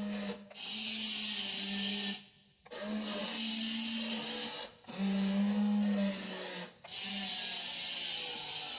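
Small electric gear motors of a WLtoys RC toy excavator whirring in bursts as its arm and bucket are worked, cutting out briefly about four times and starting again.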